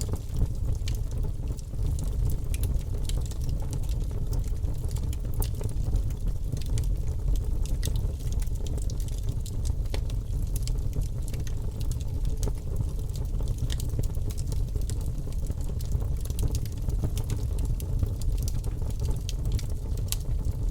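Bonfire burning, with a steady low rumble and frequent sharp crackles and pops throughout.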